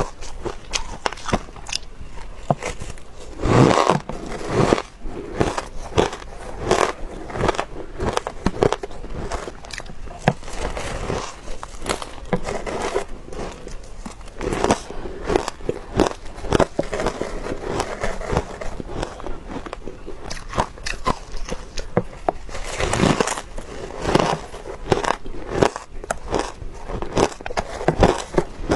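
Powdery shaved ice being bitten and chewed close to the microphone: a dense, irregular run of crisp crunches and crackles.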